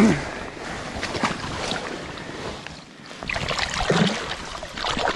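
River water splashing and sloshing around hands in the shallows as a big brown trout is released at the bank, in irregular bursts, with a short falling vocal sound at the very start.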